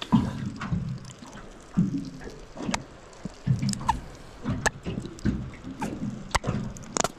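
Sauce squirted from a squeeze bottle in a string of short wet squirts, about one a second, with a few sharp clicks between them.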